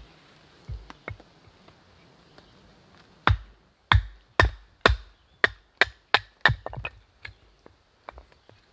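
Firewood being chopped and split: a run of about ten sharp blade strikes into wood, two to three a second, preceded by a couple of lighter knocks.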